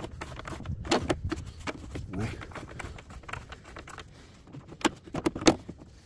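Grey engine cover of a Kohler 20 kW standby generator knocking and clicking against the engine as it is worked back into place by hand, with a couple of sharp knocks about a second in and a quick cluster near the end.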